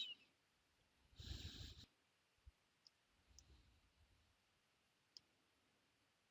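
Mostly near silence, with one brief papery rustle about a second in and a few faint clicks after it: a sheet of paper being handled and folded into wing flaps.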